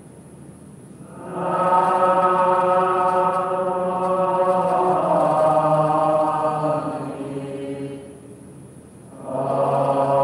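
Slow Buddhist devotional chanting in long, drawn-out notes. One phrase begins about a second in and fades after several seconds, and a new phrase starts near the end.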